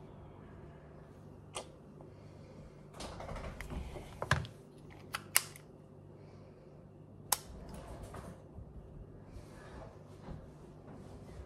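Sharp plastic clicks and rustling from handling a pen-style lancing device and a blood glucose meter: scattered single clicks, two close together about five seconds in, over a low steady hum.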